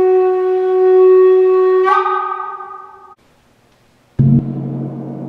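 Wooden end-blown flute holding a low note, then stepping up to a higher note about two seconds in, which stops a second later. After a brief silence, a large gong is struck once with a soft mallet and rings on with a deep, steady hum.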